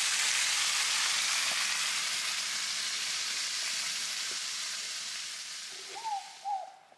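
A steady sizzling hiss, like food frying, that fades away over the last few seconds. Near the end come two short, falling bird calls.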